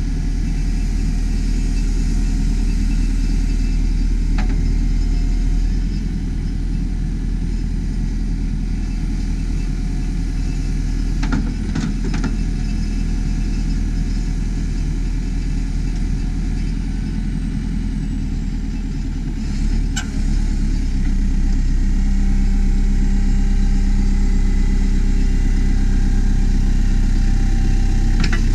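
Diesel engine of a 2007 JCB 4CX backhoe loader running steadily, with a few short knocks scattered through.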